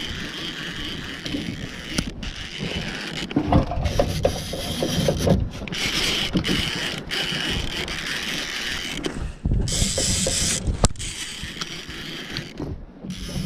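Fishing reel being cranked as a hooked fish is reeled in: steady gear whirring with clicks, plus knocks and rustling from handling the rod and gear.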